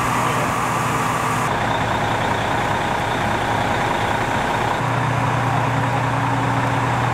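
Fire engine's diesel engine running steadily as it drives the pump feeding the charged hose lines, a deep hum with a steady higher whine on top. The sound changes abruptly about a second and a half in and again about five seconds in.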